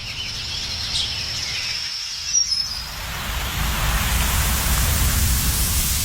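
Layered outdoor ambience from a travel film's sound design: a low steady rumble with a few short bird chirps in the first half, and a hissing wash that swells over the last few seconds.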